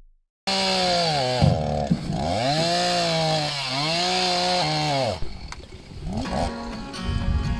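Stihl two-stroke chainsaw running at high revs, starting abruptly. Its pitch dips and recovers a couple of times, as when the chain bogs in wood and frees again, and it drops away about five seconds in.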